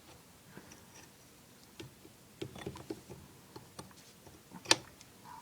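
Small clicks and knocks of a pipe fitting being worked open by hand, with one sharp, louder click near the end.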